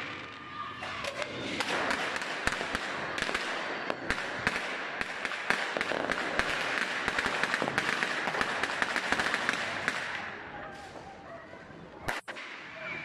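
New Year fireworks bursting and crackling: a rapid, dense stream of bangs and crackle from about two seconds in, thinning out near the end.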